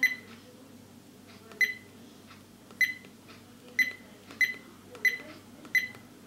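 Dash cam's button beeps: seven short, high electronic beeps at uneven intervals, one for each press of its menu buttons.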